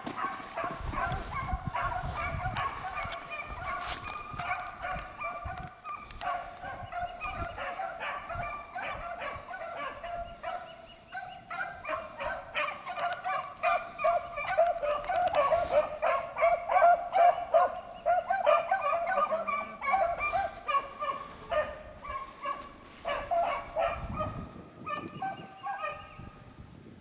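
A pack of beagles baying as they run a rabbit: many overlapping short, pitched cries. The cries swell to their loudest about halfway through and thin out near the end.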